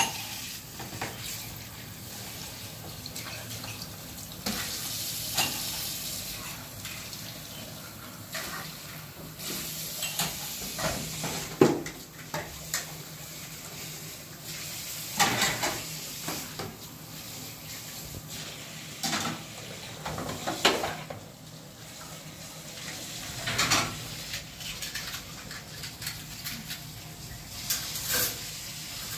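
Kitchen tap running steadily into a sink while dishes are washed, with frequent clinks and clatters of plates and glasses being rinsed and set down. The sharpest clatter comes about twelve seconds in.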